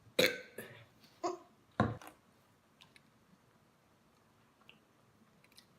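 A few short wordless vocal sounds and a thump in the first two seconds, then quiet room tone with a few faint clicks.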